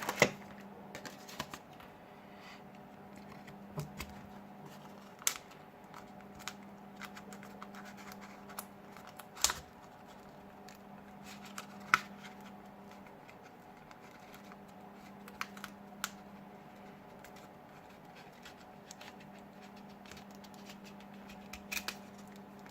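Scattered light clicks, taps and scrapes of tools and fingers on a Samsung Galaxy S6's battery and frame as the disconnected battery is pried out, over a steady low hum.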